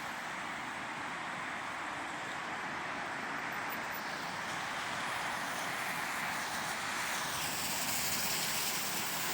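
Steady road traffic noise, tyres and engines of passing vehicles, swelling slightly in the second half.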